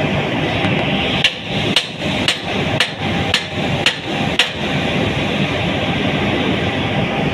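Seven sharp metal-on-metal hammering blows, about two a second, driving at a bolt jammed in a rotary cement packer's impeller, over a steady din of running machinery.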